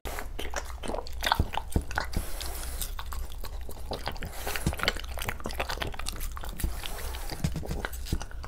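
A French bulldog biting and chewing watermelon flesh: many small wet crunches in quick, irregular succession, over a low steady hum.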